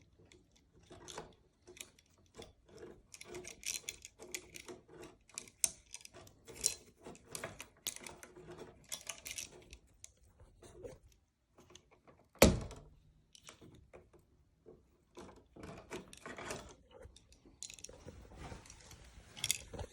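Irregular small clicks, scrapes and rustles of 14-gauge wire being twisted in a light switch's built-in strip gauge to work the insulation off, with one sharp knock about twelve seconds in.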